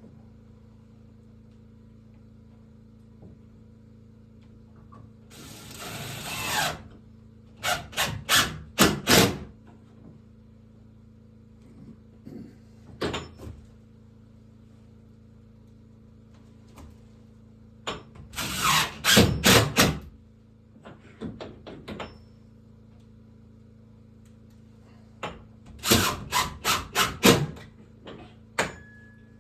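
A power drill running in short bursts, in three clusters of quick pulses several seconds apart, over a faint steady hum.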